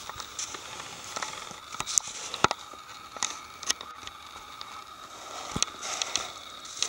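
Footsteps and shuffling on snow-patched leaf litter and debris: scattered sharp crackles and clicks, a few louder ones around two seconds in and again near the end, over a faint steady hiss.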